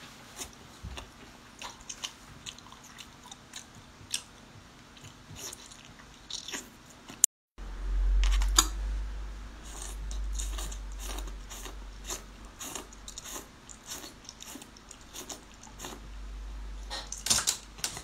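Close-miked eating sounds: chewing and sucking with many sharp wet clicks as octopus tentacles are eaten, then, after a brief cut about seven seconds in, as sea snails are bitten from a skewer. From the cut on a low rumble runs underneath, and a quick run of loud clicks comes near the end.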